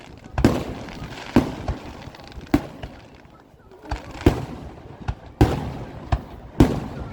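Aerial fireworks shells bursting, a sharp bang about every second with short echoing tails, some weaker than others, and a brief lull about three seconds in.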